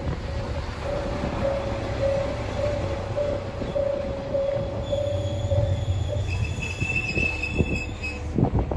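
Kanto Railway diesel railcar passing and pulling away with a low engine rumble, while a level-crossing alarm rings in a steady repeating pulse that stops about six seconds in. From about five to eight seconds a high wheel squeal rises over it, and a few knocks follow near the end.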